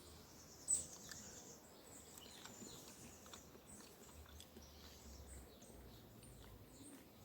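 Near silence: faint background hiss with a few soft clicks, one slightly louder tick under a second in.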